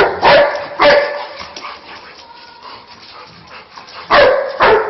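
A dog barking: three barks in quick succession at the start, a pause of about three seconds, then two more barks near the end.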